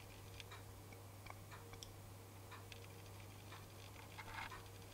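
Near silence: room tone with a steady low hum and faint, irregular little clicks, plus a soft rustle near the end.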